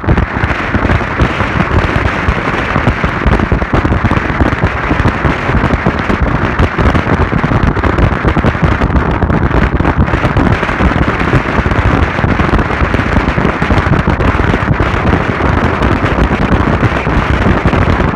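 Loud wind buffeting a phone microphone: a continuous rough rumble that does not let up.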